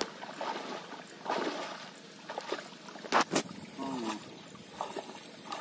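Water sloshing and splashing as a person wades through a pond handling a fishing net, irregular and uneven, with a sharp splash about three seconds in.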